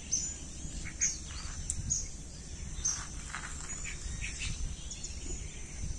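Outdoor ambience: scattered short bird chirps over a steady high insect buzz and a low rumble.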